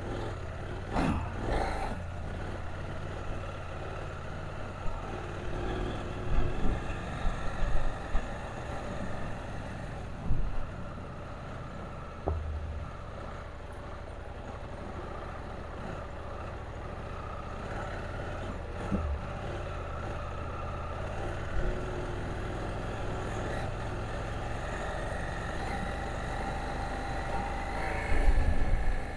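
KTM 790 Adventure's parallel-twin engine running steadily, with scattered knocks and clatters.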